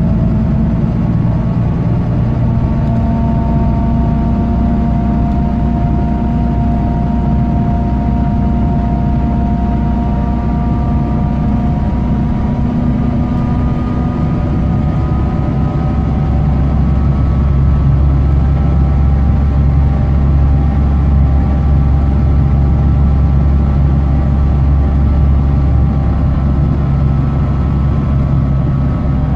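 BMC Condor bus engine with a blown exhaust, heard from inside the passenger saloon while the bus is under way. It makes a loud, steady low drone that grows heavier about halfway through. Over it a thin whine climbs slowly in pitch.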